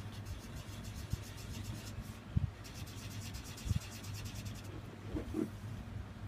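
Artline 500A felt-tip marker scratching rapidly on paper with quick back-and-forth strokes while colouring in a small area, in two spells. A low steady hum runs underneath, with two soft low thumps.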